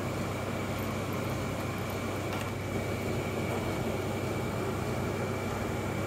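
Steady machine noise: a constant low hum with a thin high whine and an even hiss, with a faint click about two seconds in.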